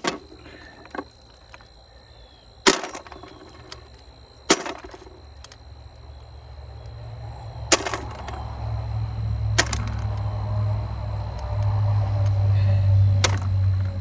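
Six sharp knocks with a short ring, spaced a second or two apart, from work on an old sawmill frame being taken apart, over a steady high insect trill; a low rumble builds in the second half.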